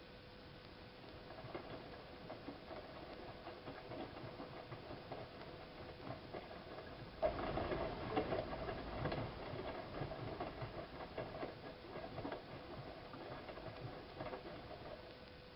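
Siemens iQ front-loading washing machine tumbling wet laundry during a 90 °C boil wash: an irregular patter that starts about a second in, is loudest around the middle, and stops near the end.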